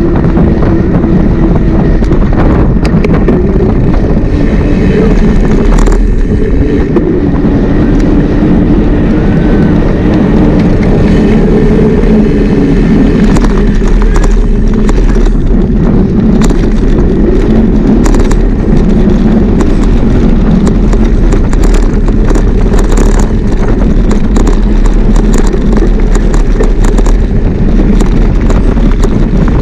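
Loud, steady wind rumble buffeting the microphone of a moving camera, with scattered clicks and rattles.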